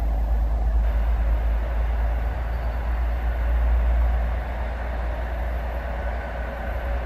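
Train running past on the track: a steady rolling rumble that swells about four seconds in and eases slightly afterwards.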